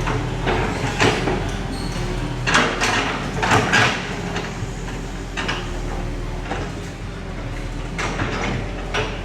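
Crawler bulldozer at work: its diesel engine running steadily, with repeated short scraping bursts over it.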